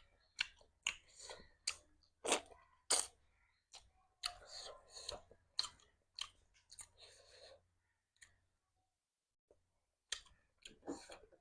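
Close-miked chewing and wet mouth smacking, irregular clicks and smacks with a pause of about two seconds near the end.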